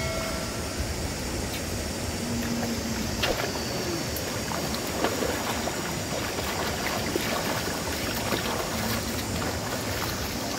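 Shallow river water splashing and sloshing as people wade and grope in it with their hands, with many small splashes over a steady rush of water.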